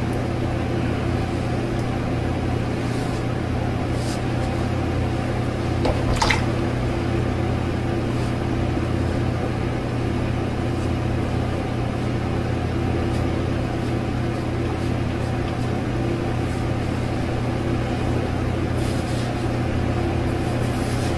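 A steady low mechanical hum, like a room fan or air conditioner, with a few faint scraping strokes of a cartridge razor drawn over a lathered scalp.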